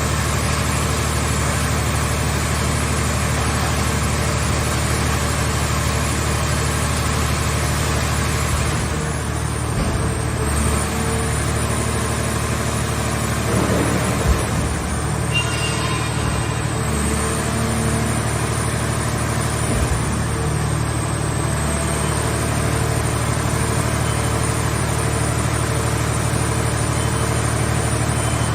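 A vehicle shell baler's power unit runs steadily with a constant low hum and a high, wavering whine, with a couple of brief knocks about 14 and 20 seconds in.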